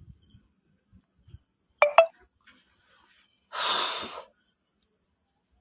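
Two sharp clicks in quick succession, then a short hiss lasting under a second, over a steady high-pitched cricket trill.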